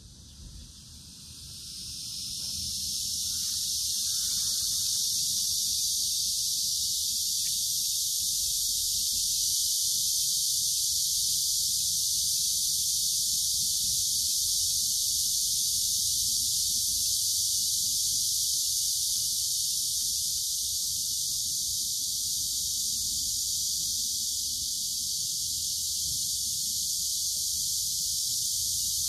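Insect chorus: a steady, high-pitched buzz that swells up over the first few seconds and then holds level.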